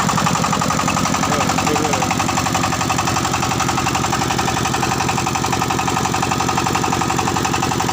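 Diesel engine of a mobile rice-hulling machine running at a steady speed, with a fast, even beat.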